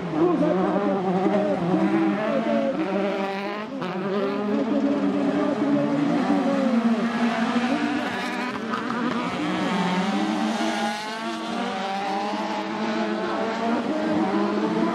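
Engines of several autocross buggies revving as they slide through a dirt hairpin, their pitches rising and falling over one another.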